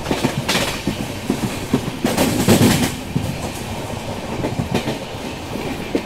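Passenger train's wheels clattering over rail joints, heard from the open coach door: a steady rush of running noise broken by groups of sharp clicks about half a second in and again from about two to three seconds in.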